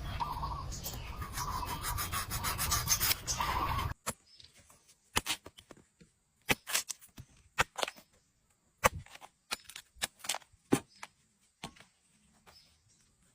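Rough rubbing and scraping, then after an abrupt change about four seconds in, scattered sharp clicks and snaps that stop near the end.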